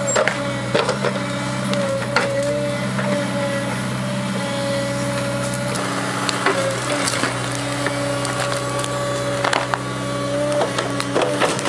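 5-tonne JCB mini excavator's diesel engine running under load with a steady, slightly wavering hydraulic whine. Over it come repeated sharp cracks and snaps of tree roots breaking as the Scorpion grab tears a stump out of the ground.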